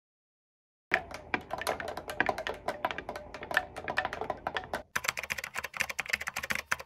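Metal kitchen utensils clicking and clinking rapidly against glass while mixing, starting about a second in, with a brief break about four seconds later.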